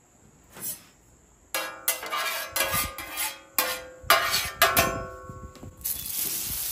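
Metal spatula scraping back and forth across the steel griddle top, spreading the beef tallow, with the plate ringing under each stroke. Near the end, potatoes are tipped onto the hot griddle and start to sizzle in the fat.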